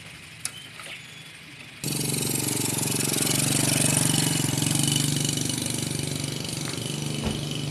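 Small Yamaha underbone motorbike engine running as the bike pulls away carrying two riders and a sheep. The sound jumps abruptly louder about two seconds in and then runs steadily, with a short thump near the end.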